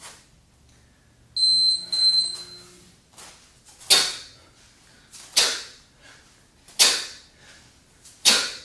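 An electronic timer beeps twice, then a set of two-handed kettlebell swings begins, with a sharp hiss on each swing about every second and a half.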